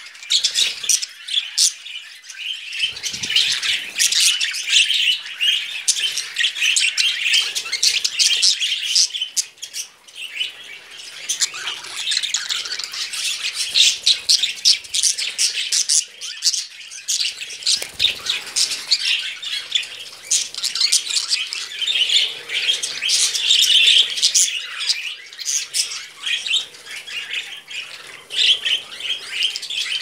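A room full of budgerigars chattering continuously, a dense mix of warbling and many short, sharp chirps and calls, with a brief lull about ten seconds in.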